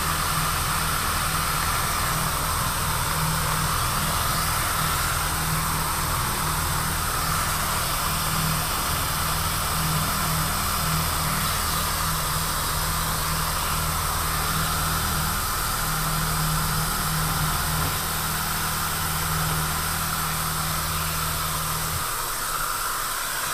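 Milling machine spindle running as an end mill cuts a keyway into a steel shaft, under the steady hiss of a mist coolant sprayer. The low machine hum drops away near the end while the coolant hiss goes on.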